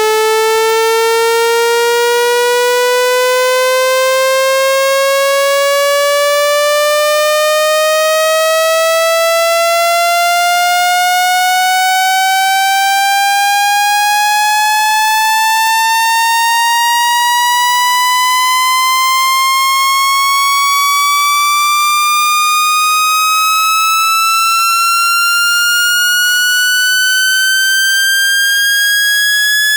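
Electronic speaker-cleaning tone: a loud, buzzy test tone rich in overtones, rising slowly and steadily in pitch. It is a frequency sweep meant to shake dust and dirt out of a phone speaker grille.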